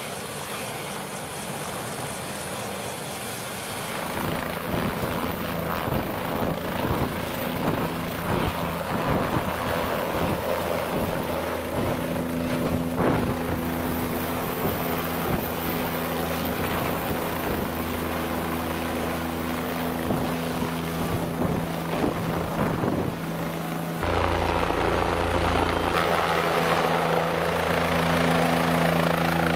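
Helicopter running, a steady rotor and engine noise with a low hum. It grows louder about four seconds in and shifts suddenly about 24 seconds in.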